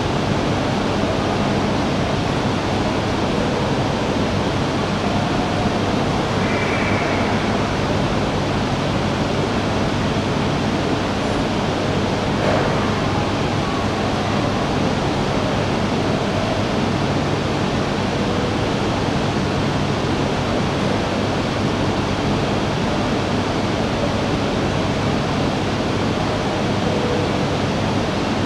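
Steady rushing ambient noise of a station platform, with a low hum underneath.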